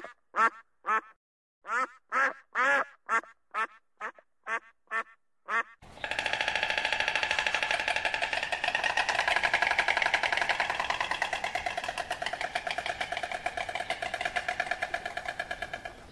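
Ruddy shelducks calling: a string of short, nasal honks, two or three a second. About six seconds in it switches abruptly to a different continuous, rapid rattling call with a steady pitch.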